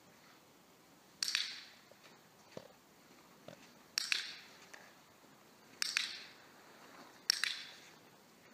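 A dog-training clicker clicked four times a few seconds apart, each sharp double click followed by an echoing tail, marking the puppy's correct position in heelwork.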